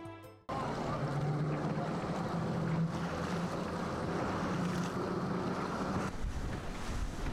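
Boat under way at sea: a steady low engine hum under rushing water, with wind buffeting the microphone. Near the end the hum fades and the wind rumble takes over.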